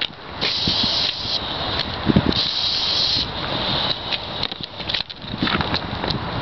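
Aerosol spray can hissing in two bursts of about a second each, with a thump between them.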